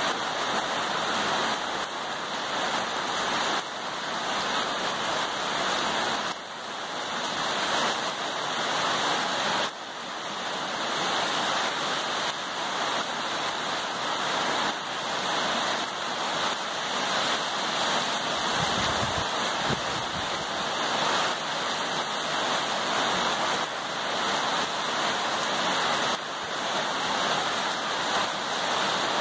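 Rain falling steadily, a dense, even hiss.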